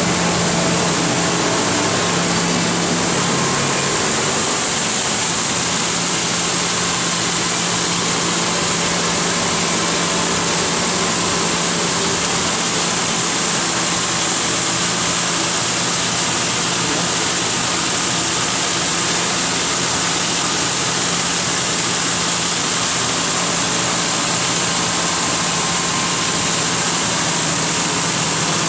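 Abplanalp TFG grinder running steadily, its grinding head surfacing small aircraft brake pads carried on the wet conveyor belt: a loud, even hiss over a steady low hum.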